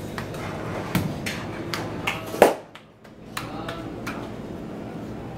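Hands slapping and patting naan dough: a few separate soft smacks in the first half, the loudest about two and a half seconds in, over a steady kitchen hum.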